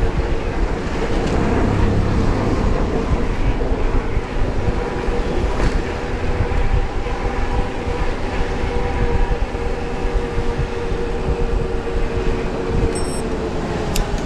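Traffic noise heard from a moving bicycle in city traffic: a loud steady rumble with a droning engine hum from nearby vehicles. A short high beep sounds near the end.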